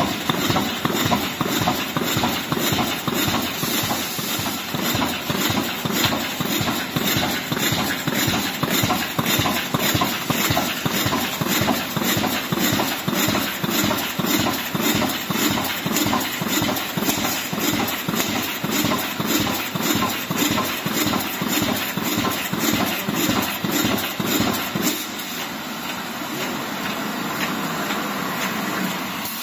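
Automatic wire mesh welding machine running, its welding heads and pneumatic cylinders firing in a rapid, rhythmic clatter as cross wires are resistance-welded into mesh panel. About 25 seconds in the clatter drops away, leaving a quieter, steadier running sound.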